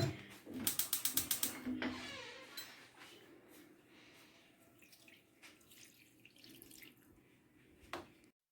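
Liquid poured from a bowl into the paella pan: a quick run of splashes, then a hiss that fades out. Near silence follows, with one short click near the end.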